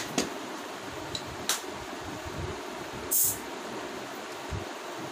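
Cap of a plastic soda bottle being twisted open: a few sharp clicks, then a short hiss of escaping carbonation about three seconds in.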